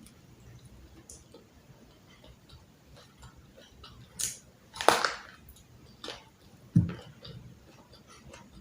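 Mealtime handling and eating sounds: scattered small clicks and taps, a short noisy burst about four seconds in, a louder one just before five seconds, and a low thump near seven seconds.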